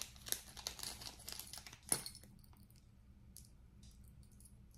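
Small clear plastic bag crinkling as fingers work it open to get at a piece of jewelry. Light crackles run for about two seconds with a sharper click near the end of them, then only a few faint rustles.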